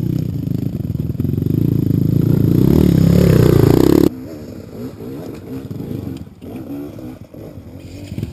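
Enduro dirt bike engine revving hard up close, climbing in pitch and loudness, then cutting off abruptly about four seconds in. A fainter dirt bike engine runs on after it.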